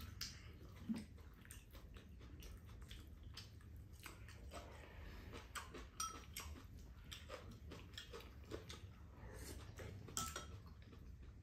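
Chopsticks and spoons tapping and scraping against ceramic rice bowls, with chewing: many small, irregular clicks.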